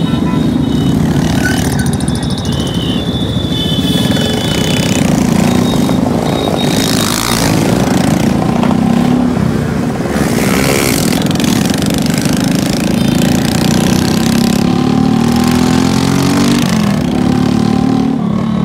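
Motor vehicle engine running on the move amid road traffic, its pitch rising and falling, with a few rising sweeps as it speeds up near the end.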